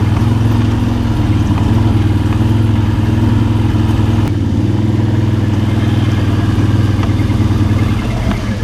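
ATV engine running at a steady, unchanging pitch while the quad is ridden along a trail.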